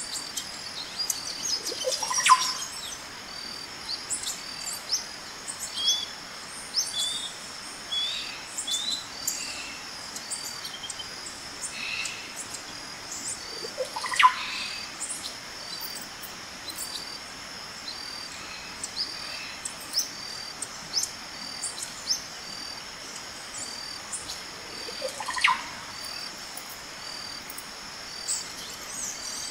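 Birds chirping and calling over a steady, pulsing insect trill. A louder call sweeps quickly upward three times, about twelve seconds apart.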